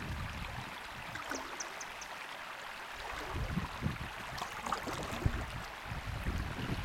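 Breeze buffeting the microphone in gusty low rumbles over a steady wash of water around an inflatable kayak. A few short high chirps sound about a second and a half in.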